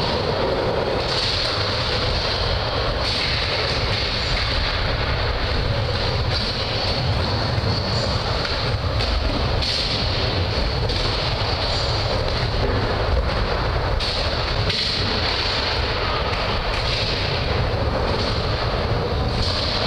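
Skateboard wheels rolling and carving on a wooden mini ramp, heard as a steady noisy rumble with a few faint knocks.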